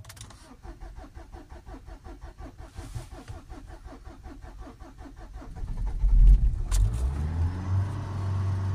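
Starter motor cranking a Renault 1.5 dCi four-cylinder turbodiesel in a Nissan Qashqai for about five seconds, then the engine catches with a loud rumble and revs up. It now fires and revs after its badly blocked diesel particulate filter was soaked with cleaning fluid.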